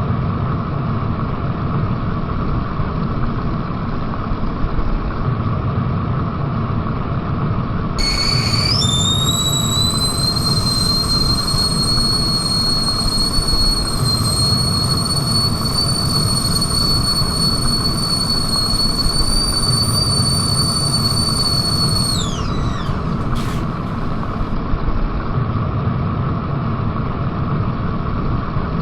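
Whistling kettle at the boil: a steady low noise of boiling water throughout. About eight seconds in, a single high whistle starts with a quick upward glide, holds steady for about fourteen seconds, then falls in pitch and stops.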